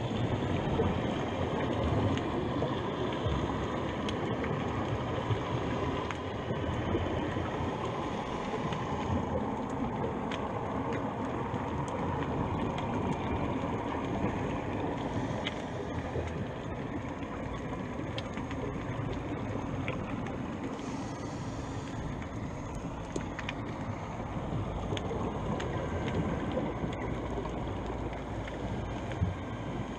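Steady muffled underwater noise heard through an action camera's waterproof housing, with a few faint scattered clicks.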